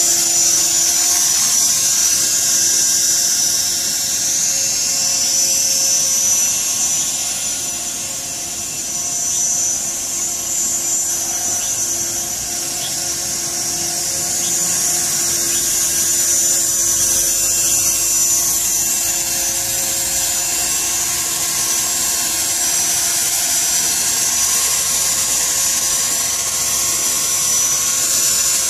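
Electric 450-size RC helicopter (CopterX Black Angel) in flight: the steady high-pitched whine of its motor and gears with rotor noise. It grows somewhat quieter in the middle as the helicopter flies off, then louder again as it comes back close.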